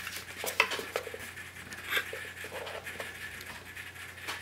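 Handling noise from a camera being repositioned by hand: rubbing and scraping with a few light knocks, the sharpest about half a second and two seconds in, over a faint steady low hum.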